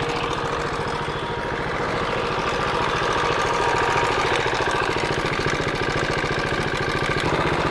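KTM Duke 390's single-cylinder engine idling steadily, with the abnormal engine noise that was traced to a failed cam chain tensioner.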